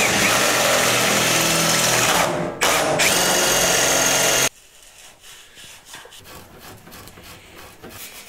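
Cordless drill running at speed, match-drilling a bolt hole for the engine mount through an aircraft firewall. It eases off briefly about two and a half seconds in, picks up again, and stops abruptly after about four and a half seconds, leaving fainter handling noises.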